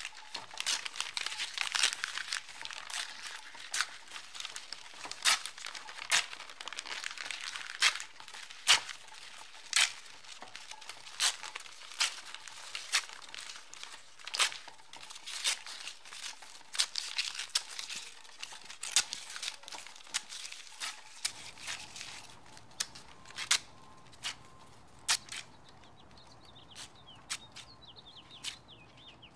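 Paper rustling and crinkling, with many sharp snaps, like book pages being handled and turned. About two-thirds of the way through it thins out, and faint bird chirps come in near the end.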